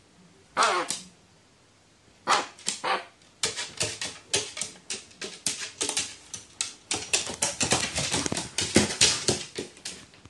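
Pet crow sneezing once about half a second in, with two more short sneeze-like sounds a couple of seconds later. From about three and a half seconds, a quick run of short, sharp sounds, several a second, continues until near the end.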